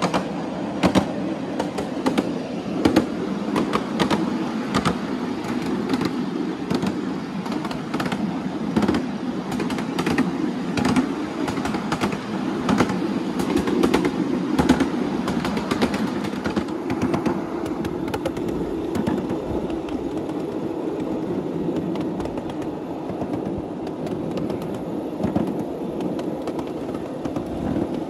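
Ride-on miniature train running along 7.25-inch gauge track: a steady rumble of the cars with frequent sharp clicks and knocks from the wheels over the track and trestle. Later on the clicks thin out and the sound grows duller.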